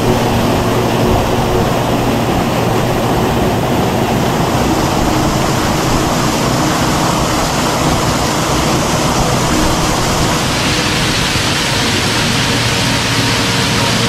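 Small waterfall pouring into a rock pool: a loud, steady rush of falling and splashing water, turning brighter and hissier about ten seconds in.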